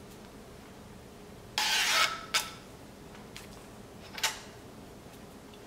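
Backing liner being peeled off the peel-and-stick adhesive tape on a carbon fiber dash trim piece: one short rasping rip about one and a half seconds in, followed by a few light clicks and handling rustles.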